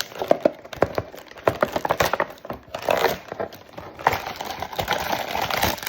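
Toy box packaging being torn and crushed open by hand: a run of sharp cardboard snaps and clicks, with crinkling of packaging from about the middle on.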